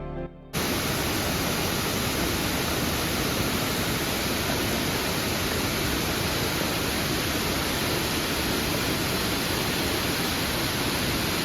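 Waterfall pouring, a loud, steady rush of water noise that starts abruptly about half a second in, as background music cuts off.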